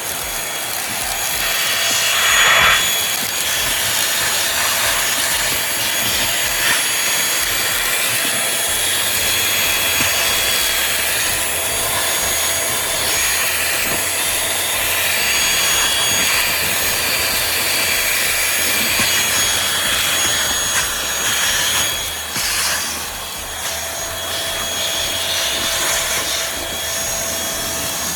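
Cordless vacuum cleaner running, a steady high motor whine over rushing air, with rubbing and scraping noise that swells and eases as it is worked over a surface.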